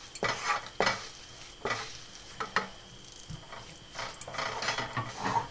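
Wooden spatula stirring a thick ragi flour and jaggery syrup mixture in a metal kadhai on the stove: irregular scrapes and knocks against the pan, roughly one a second, over a light sizzle of the mixture cooking.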